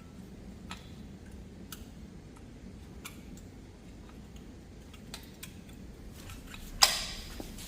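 Rear brake pads being fitted into a car's brake caliper: light scattered metal clicks and taps, then one sharp metal clank near the end.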